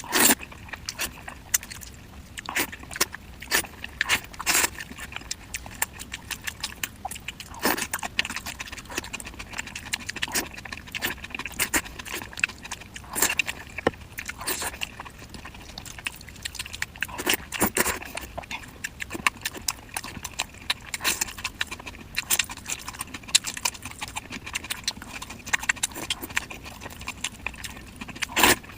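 Close-miked eating sounds: wet mouth clicks, lip smacks and chewing come at an irregular pace, several a second, with some much louder smacks among them.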